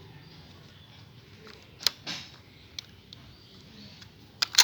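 Rechargeable batteries being fitted one by one into the plastic battery compartment of a small battery-powered lawn mower: a few sharp plastic clicks with a short scrape, the loudest two close together near the end.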